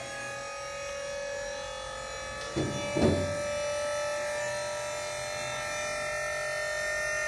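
Electric motor of a pickup's dump-bed hoist running with a steady buzzing hum. Two knocks come close together about two and a half seconds in.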